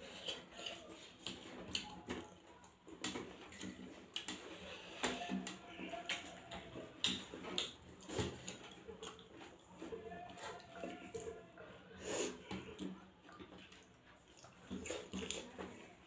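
Eating by hand from a stainless steel plate: fingers scraping and mixing rice and curry against the plate in scattered clicks, with chewing and mouth sounds between them.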